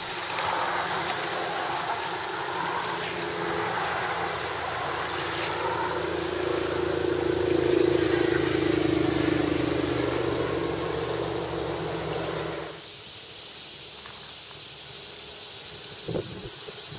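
Traffic on an overhead road bridge: a steady rumble with a low hum that swells to its loudest about eight seconds in, then cuts off suddenly a few seconds later, leaving a quieter outdoor background with a few soft knocks near the end.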